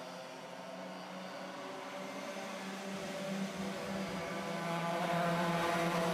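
Small racing kart engines running as a pack of junior karts races past, with a steady engine note that grows louder over the last few seconds.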